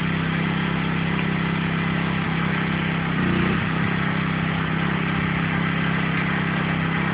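Pressure washer's gas engine running steadily, with the hiss of water spraying from a turbo nozzle.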